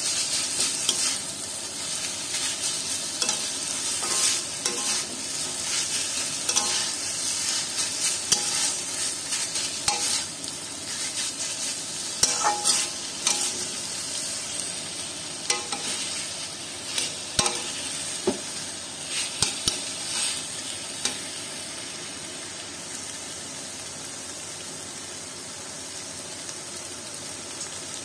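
A metal spatula scrapes and stirs red amaranth greens and diced vegetables in a metal kadai over a steady frying sizzle. The irregular scraping and knocking strokes stop about three quarters of the way through, leaving the sizzle alone.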